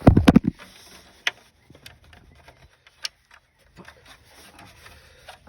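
A short, loud metallic clatter, then a few sharp clicks and taps as tools and parts are handled at a car wheel.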